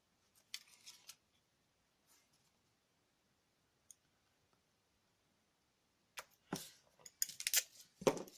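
Faint crackly rustles and clicks of small craft materials being handled as glue dots are peeled off their backing and pressed onto small magnets. A few soft clicks come about half a second in, then it is nearly quiet, and a denser cluster of crackles and clicks comes in the last two seconds.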